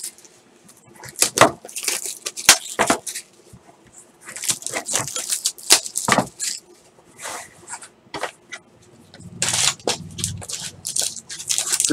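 Clear plastic shrink wrap crinkling and a cardboard trading-card box being handled and opened, making irregular crackles, clicks and rustles with short quiet gaps between them.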